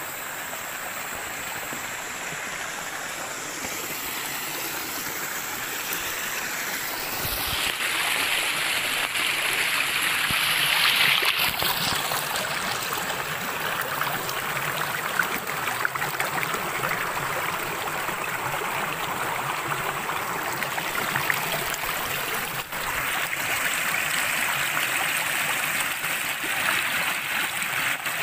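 Water rushing over the rocks of a small river rapids: a steady rush that grows louder about eight seconds in.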